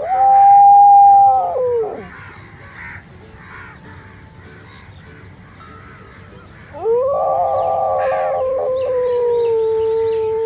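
Two loud, long held animal cries. The first lasts under two seconds; the second starts about seven seconds in and holds for about four seconds. Each swoops up in pitch at the start and falls away at the end.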